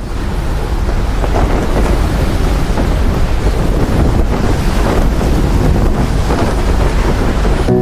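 Loud, steady rushing roar with a deep rumble underneath; no single bang stands out.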